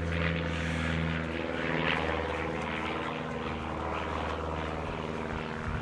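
An engine running steadily at an unchanging pitch, a low droning hum.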